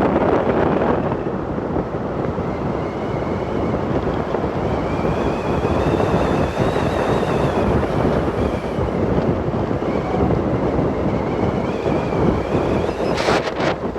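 Steady rushing noise of wind and a moving vehicle, with a faint wavering whine in the middle.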